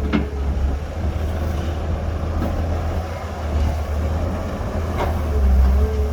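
Heavy diesel engine of earthmoving machinery running steadily with a deep low rumble. There are two short knocks, one at the very start and another about five seconds in.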